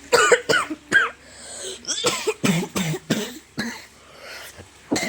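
A boy coughing: a fit of repeated short, sharp coughs in quick runs, from a cough that comes with a fever.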